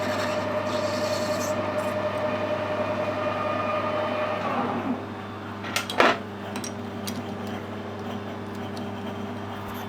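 Metal lathe running while facing the end of a small brass part, a steady hum with a held tone that fades about five seconds in. A single sharp knock comes about a second later, over the continuing hum.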